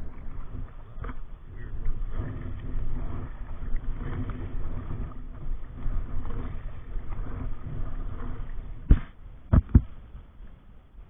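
Rustling, rumbling handling noise as the camera is moved about against clothing in a plastic kayak. Three sharp knocks follow close together near the end.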